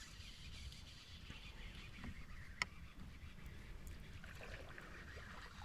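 Rain falling on the lake surface, a faint even hiss, with a low rumble underneath and a single sharp click about two and a half seconds in.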